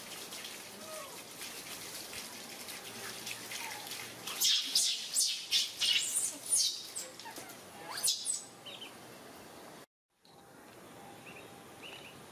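Water from a garden hose pouring faintly, then, from about four seconds in, a run of loud, shrill squeals from baby macaques being bathed, about two a second for some four seconds. A couple of faint chirps follow near the end.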